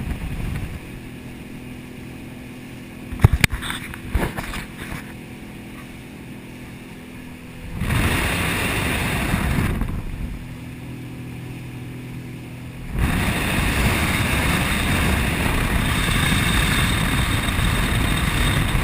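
Motorboat's outboard engine running at a steady low hum, with a few sharp knocks, then a loud rush of wind and water as the boat gets under way, briefly near the middle and steadily over the last third.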